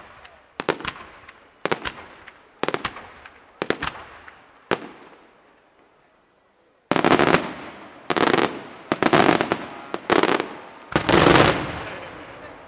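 Aerial firework shells bursting overhead. Sharp bangs come about once a second for the first five seconds, then after a short lull a louder, denser run of bursts, again about one a second, fades away near the end.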